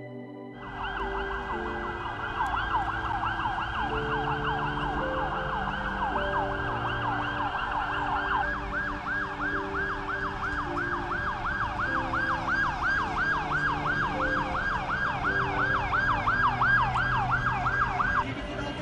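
Emergency vehicle siren sounding a rapid rising-and-falling yelp, about three sweeps a second, stopping shortly before the end.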